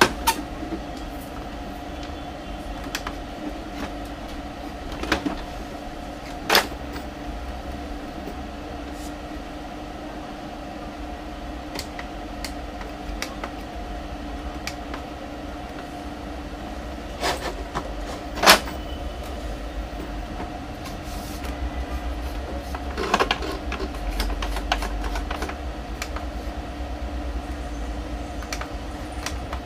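Scattered clicks and knocks of plastic parts being handled on an opened Epson L3110 inkjet printer, over a steady mechanical hum. The loudest knock comes a little past the middle.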